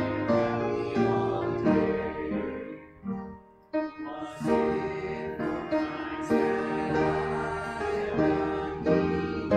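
A congregation singing a hymn with keyboard accompaniment. The music fades and breaks off briefly about three and a half seconds in, then comes back at full level.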